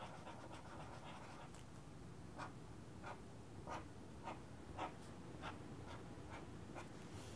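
Faint scratching of a felt-tip marker on paper: a series of short, quick strokes, about one every two-thirds of a second, as a small star is drawn, starting about two seconds in.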